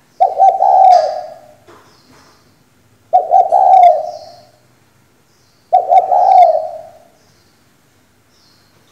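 Female spotted dove cooing: three call phrases about two and a half seconds apart, each starting abruptly with a few quick notes and then trailing off.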